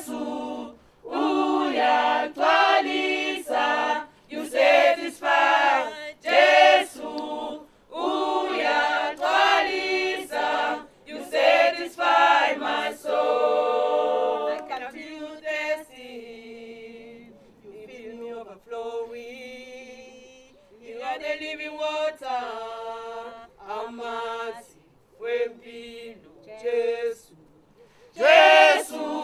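A small choir singing unaccompanied, in phrases broken by short breaths. The singing grows softer about halfway through and comes back full near the end.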